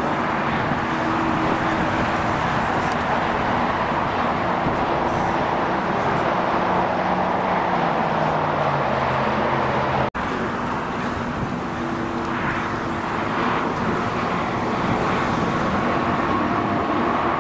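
Steady noise of jet aircraft and road traffic, with a low tone that falls in pitch about seven to nine seconds in. The sound cuts out for an instant about ten seconds in.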